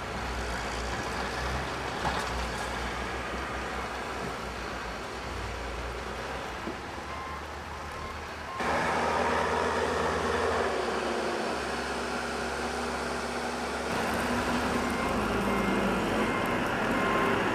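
Motor vehicle engines running steadily with street traffic noise, most likely snow-clearing trucks and equipment. The sound jumps abruptly louder a little past halfway.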